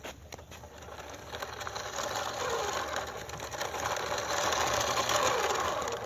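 Toy remote-control car's small electric motor and plastic gears whirring as it drives over dirt, getting louder toward the end and then cutting off suddenly.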